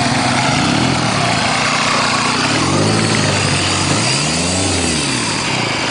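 Vehicle engine revving in repeated swells, its pitch rising and falling about three times over a constant rushing noise.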